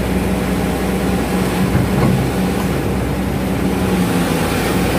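Hydraulic excavator's diesel engine running steadily under working load, heard from the operator's cab as the bucket dumps soil into a dump truck and swings back. Its note shifts briefly about two seconds in.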